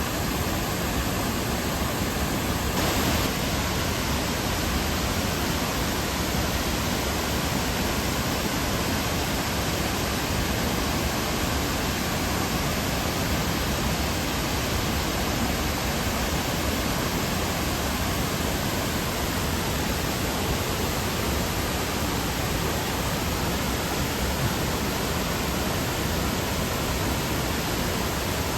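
Steady rush of water from Fukiware Falls and the Katashina River, an even, unbroken roar.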